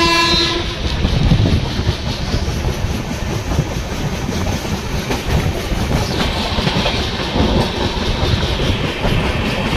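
Passenger train running along the track, heard from an open coach doorway: steady rumble and clatter of the wheels on the rails. A short horn blast sounds right at the start.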